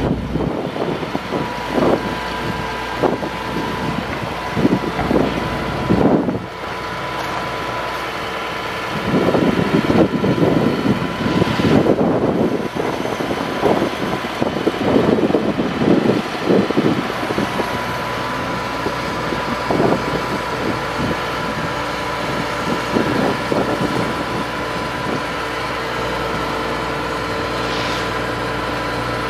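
Ford F750 digger derrick truck running with a steady whine from its hydraulics as the boom is worked. Irregular clattering and knocking come and go, thickest from about a third of the way in to a little past halfway.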